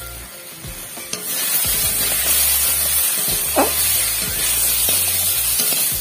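Crabs frying in oil and spice paste in a kadai, sizzling and being stirred; the sizzle gets louder about a second in. There is one short scrape about halfway through, over quiet background music.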